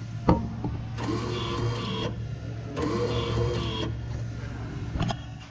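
Akiles Coil-@-Crim electric coil crimper's mechanism actuating twice from the foot pedal with no coil loaded: two motor-driven whirring strokes of about a second each, over a steady machine hum, with sharp clicks near the start and near the end.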